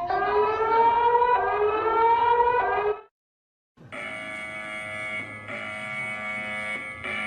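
Emergency alert alarm tones: a slowly rising siren tone for about three seconds that cuts off abruptly, then after a short silence a steady alarm tone made of several pitches at once, which dips briefly twice.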